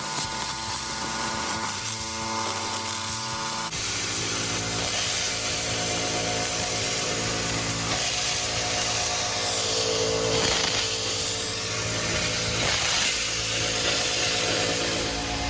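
Thermal Dynamics Cutmaster 51 plasma cutter cutting steel plate: a loud, steady hiss that starts suddenly about four seconds in and keeps going.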